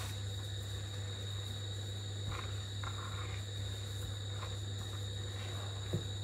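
Hands dredging chicken pieces in dry flour breading on a plate, with faint soft scuffing rustles, under a steady low hum and a continuous high-pitched whine. One light knock just before the end.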